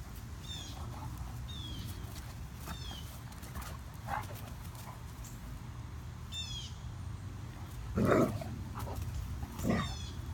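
Great Danes at play: a dog gives two short play vocalizations, the louder about eight seconds in and another near the end. A bird chirps in quick falling notes several times in the background.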